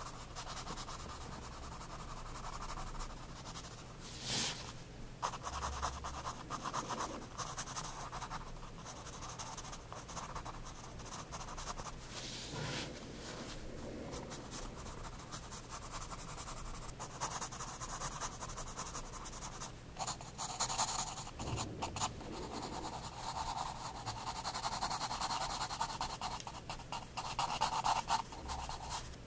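Soft 9B graphite pencil scratching over sketchbook paper in quick, repeated shading strokes, with now and then a longer, louder scrape.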